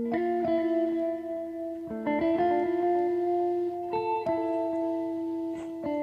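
Background music: plucked guitar chords ringing out, with a new chord struck about every two seconds.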